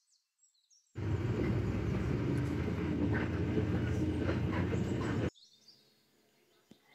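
Steady engine and road rumble heard from inside a moving bus, starting abruptly about a second in and cutting off suddenly about four seconds later.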